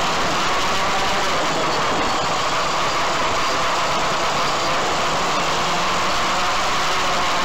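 DJI Phantom quadcopter's electric motors and propellers buzzing steadily in flight, heard through its onboard camera, with a steady band of buzz around the middle of the range and wind rushing over the microphone.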